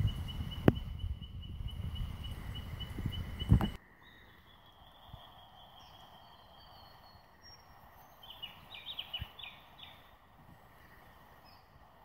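Low rumble of wind buffeting the microphone, with a fast, steady high chirping behind it. About four seconds in it cuts to quiet creek-side ambience, where a bird gives a long high whistle and then a quick run of chirps.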